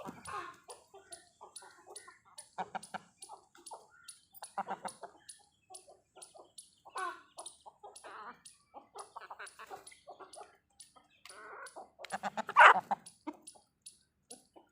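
Domestic chickens clucking in short, repeated bursts, with one louder burst of clucks near the end.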